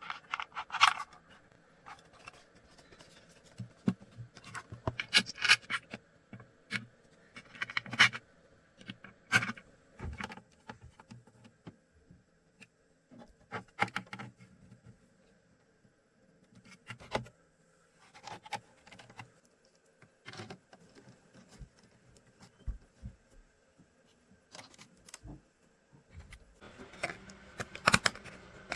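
Hands handling and fitting PC parts and 3D-printed case pieces: scattered clicks, knocks and short scrapes of plastic and metal with quiet gaps between them, busiest near the end.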